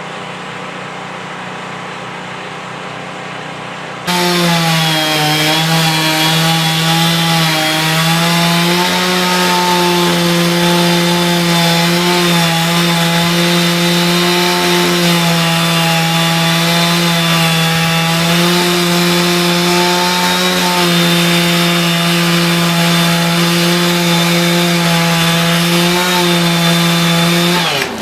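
Chainsaw cutting wood, its engine running fast and steady with small dips in pitch as it works. It starts suddenly about four seconds in, after a quieter stretch, and cuts off just before the end.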